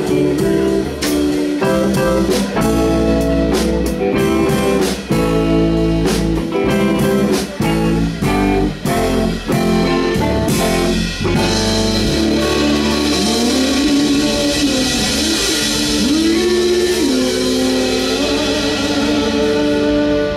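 Live blues band playing electric guitar and drums behind a female singer. About eleven seconds in, the drum beat stops and a ringing cymbal wash takes over under long sliding held notes, in the manner of a song's closing flourish.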